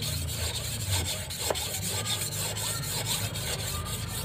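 A88 steel golok blade being rubbed back and forth on a natural whetstone: a continuous gritty scraping of steel on stone, which the sharpener takes from its sound as a sign that the edge is biting on the stone.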